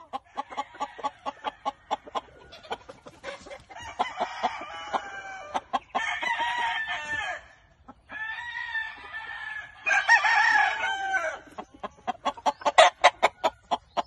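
Roosters crowing: four long, drawn-out crows in the middle. Before and after them come many quick, short clucks, thickest near the start and again near the end.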